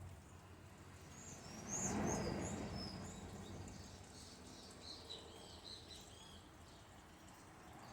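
Birds chirping in short, high, repeated notes, with a brief swell of rushing noise about two seconds in.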